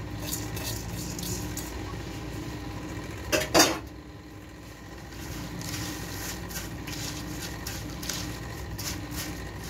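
Metal spoon scraping and clinking against a ceramic serving dish as fried boondi are stirred through yogurt, with one louder knock about three and a half seconds in.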